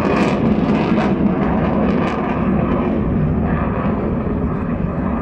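Fighter jet's engines passing overhead: a steady, loud rush of jet noise that slowly eases as the aircraft moves away.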